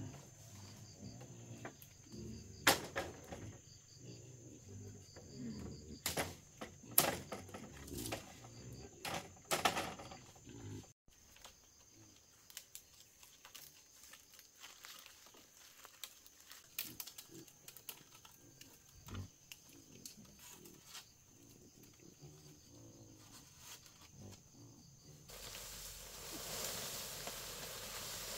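Wild boars grunting, with scattered sharp knocks and clatter. After a cut about 11 s in, only softer knocks and rustles remain. About 25 s in, a steady hiss starts.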